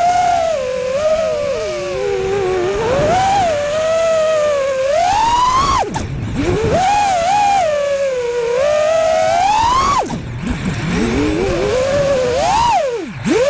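Whine of an FPV freestyle quadcopter's four brushless 2306 1960 kV motors on 6S, its pitch sliding up and down with the throttle. It drops sharply on throttle cuts about six and ten seconds in and again near the end, then climbs back. A rush of air noise runs underneath.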